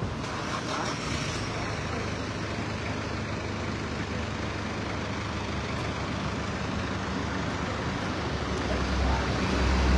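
Street traffic with a vehicle engine running steadily at a low pitch; a louder, deeper engine rumble builds up near the end.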